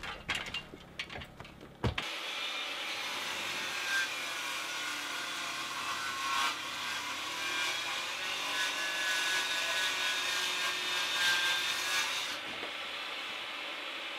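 Jobsite table saw ripping a board lengthwise: after a few knocks, the saw starts suddenly about two seconds in and runs under load as the wood feeds through, with a faint high whine from the blade, easing near the end as the cut finishes.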